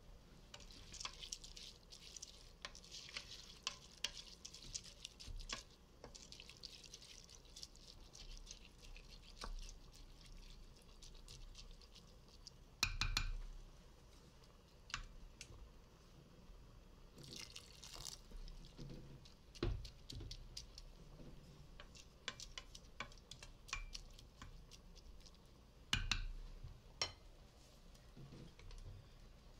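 A spoon stirring rice and broth in a stainless-steel Instant Pot inner pot: soft liquid swishing with scattered clicks and scrapes of the spoon against the metal, and a few louder knocks.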